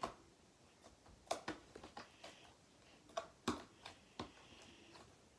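Glitter slime being squished and kneaded by hand, giving irregular sharp clicks, about ten of them.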